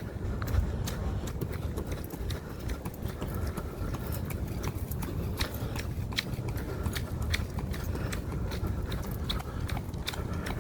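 Footsteps of a slow jog, a light slap roughly two or three times a second, over a low steady rumble.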